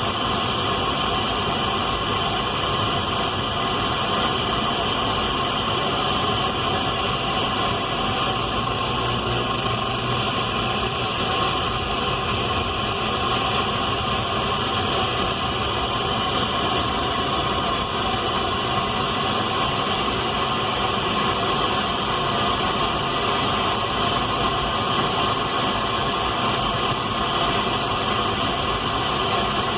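Radio static: a steady, unbroken hiss with faint constant tones running through it.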